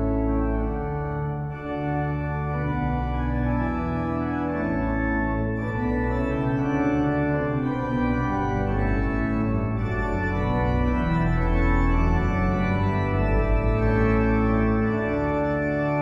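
Harrison & Harrison pipe organ (1912) playing its great-organ chorus with the five-rank quint mixture drawn, a sequence of full sustained chords rich in bright upper harmonics.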